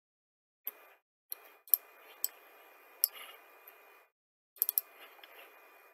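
Computer mouse clicks: about seven short, sharp clicks at irregular intervals, over a faint hiss of room noise that drops out briefly before the last two.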